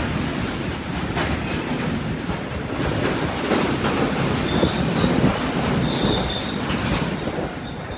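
Freight train of tank wagons rolling past close by: a steady rumble of wheels with clicks over the rail joints and a faint high wheel squeal from about halfway through. The sound drops off near the end as the last wagons pass.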